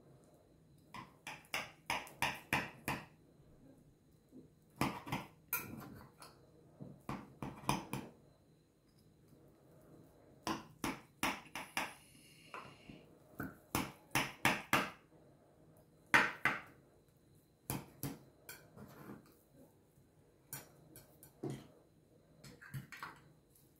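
Metal knife tapping and clinking against the bottom of a glass baking dish as it cuts through a baked cassava cake, in quick runs of several taps a second with short pauses between.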